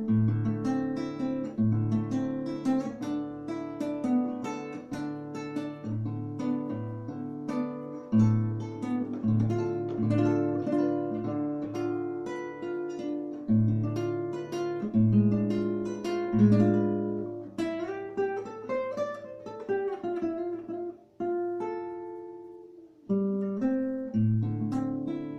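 Solo acoustic guitar, plucked melody notes over bass notes. About three quarters of the way through the playing thins to a few ringing notes, then picks up again near the end.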